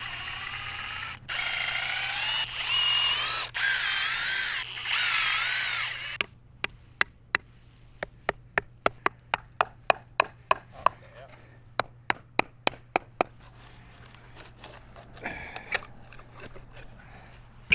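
Power drill backing screws out of wooden concrete forms, running in short squealing bursts for about six seconds, followed by a string of sharp clicks or taps about two a second.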